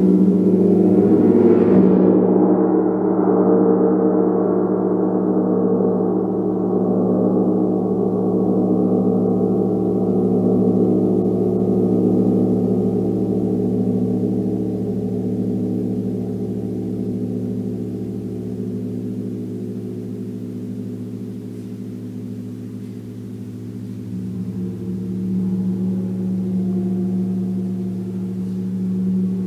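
A gong struck near the start: its bright upper overtones shimmer and die away within a few seconds, leaving a rich low ringing hum of many layered tones that sustains and slowly pulses. The ring swells again about 24 seconds in, as the gong is worked softly.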